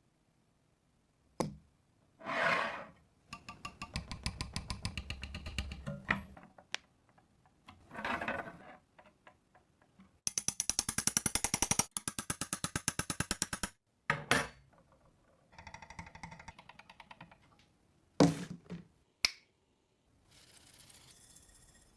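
A series of short hand-work sounds from restoring an old fan, with brief gaps between them: noisy swells and scraping, a loud run of rapid, even clicking or rattling that lasts a few seconds, and a few sharp knocks.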